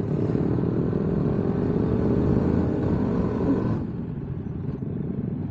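Motorcycle engine running at road speed with wind and tyre noise, heard from a camera mounted on the bike; it turns quieter about two-thirds of the way through.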